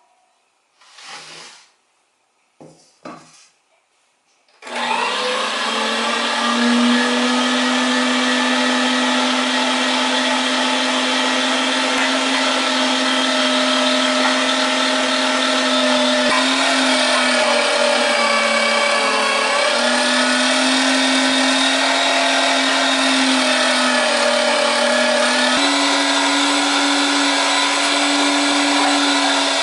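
A Kitchener #12 electric meat grinder switches on about five seconds in, after a few short handling sounds, and runs steadily with a strong motor hum. The hum's pitch sags and recovers a few times, with a small step up near the end.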